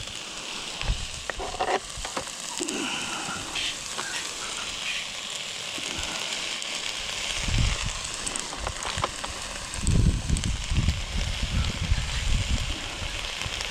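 Onion and capsicum sizzling in oil in a cast iron pot over campfire coals, a steady frying hiss. Low rumbling noises come and go in the last few seconds.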